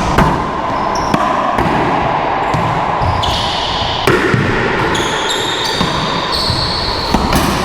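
A racquetball rally on an indoor court: sharp ball strikes off racquets and walls, roughly a second apart, ringing in the enclosed court.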